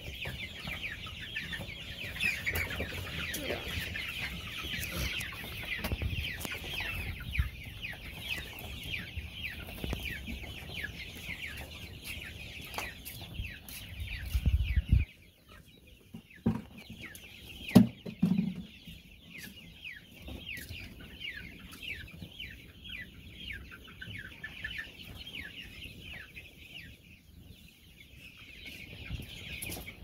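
A flock of six-week-old Kuroiler chicks peeping nonstop, many short falling peeps overlapping. About halfway through, a low rumble stops abruptly, and a few sharp knocks follow a couple of seconds later.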